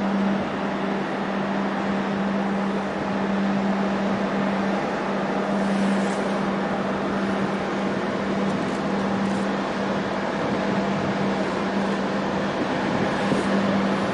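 Steady machinery hum of the container ship Ever Given passing close: a constant low drone over an even wash of noise.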